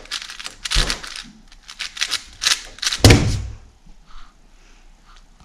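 Plastic 4x4 speedcube being turned fast: a rapid run of clicking layer turns, ending about three seconds in with a thud as the solved cube is put down on the timer mat. After that, only faint handling sounds.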